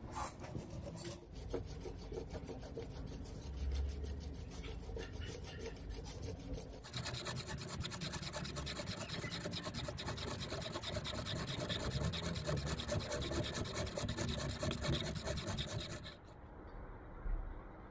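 Steel kitchen knife blade scraped rapidly back and forth against a green bamboo tube to sharpen its edge, a continuous rasping rub. About a third of the way in the scraping turns louder and harsher, and it stops abruptly near the end, leaving a quieter rub.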